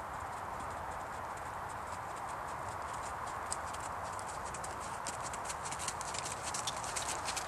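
A horse's hooves on an arena surface, getting louder and more distinct in the second half as the horse comes close. A steady hiss of heavy rain runs underneath.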